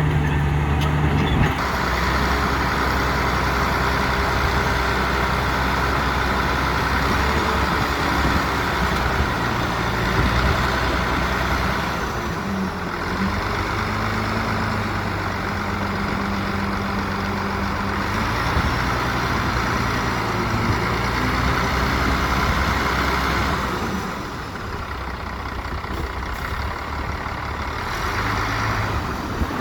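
Heavy diesel construction machinery running, its engine note shifting in pitch and loudness several times.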